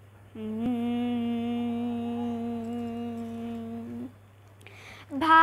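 A girl hums one long, steady note with her mouth closed, taking her pitch before starting a Telugu devotional song. It stops about four seconds in, and she draws a breath and starts singing right at the end.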